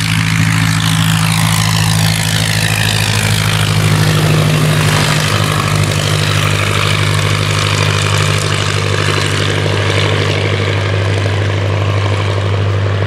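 Curtiss Jenny biplane's Hispano-Suiza (Hisso) V8 engine and propeller running steadily at takeoff power as the plane lifts off and climbs away.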